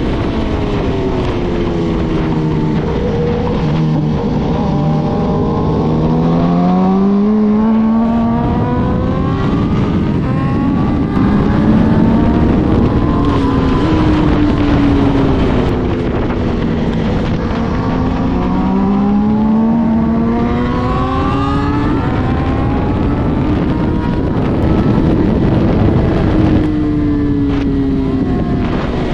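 Yamaha YZF-R6 inline-four sport bike engine through an Akrapovic exhaust, accelerating hard through the gears with the note climbing and breaking at each quick upshift, then falling away on downshifts under braking, several times over. Wind rush runs under the engine throughout.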